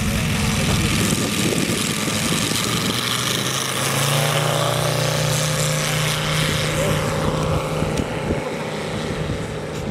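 Radio-controlled scale model high-wing airplane taking off: its engine and propeller run under throttle, the note rising about three to four seconds in and then holding steady as the model lifts off and climbs away.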